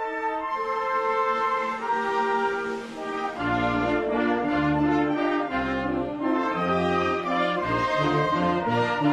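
Brass band playing a slow, sustained melody, with low bass notes joining about three and a half seconds in.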